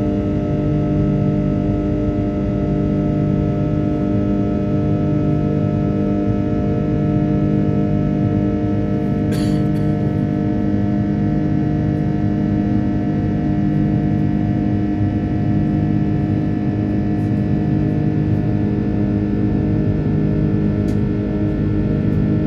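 Airbus A330-300 turbofan engines at climb power heard inside the cabin: a steady drone of many held tones over a low rumble, with a low throb that swells and fades every second or two. A brief click about nine seconds in.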